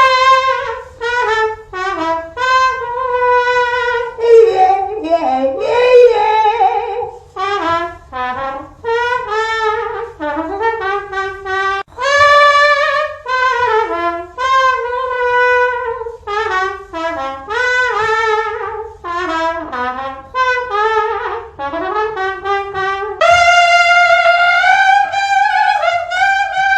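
A woman imitating a trumpet with her mouth, playing a melody in short phrases of brassy notes with brief pauses between them. Near the end she holds one longer note.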